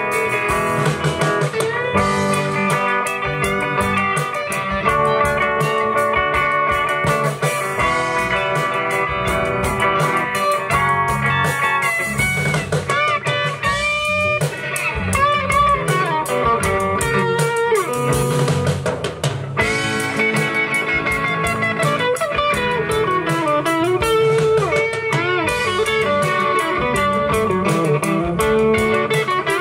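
Live rock band playing an instrumental passage: electric guitar lead lines over bass, rhythm guitar and a drum kit. The lead notes bend and waver through the middle stretch.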